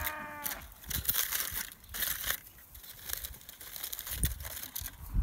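Aluminium foil crinkling and crumpling in irregular bursts as it is peeled back from hot foil-wrapped muffins.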